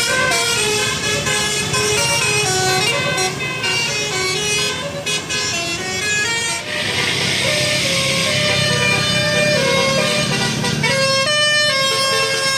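A telolet basuri multi-tone air horn playing a quick melody, its pitched notes stepping up and down, over a low engine rumble. A rushing noise swells in about halfway through and fades again.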